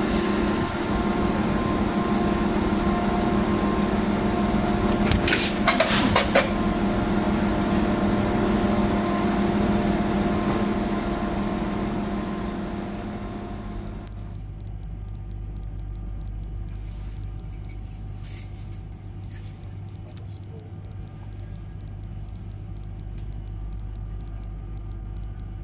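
DSB IC3 diesel multiple units standing coupled, their running machinery giving a steady hum with several held tones, broken by a few short sharp clicks or hisses about five to six seconds in. About halfway through the sound drops to a quieter, lower steady hum, as heard from inside the driver's cab.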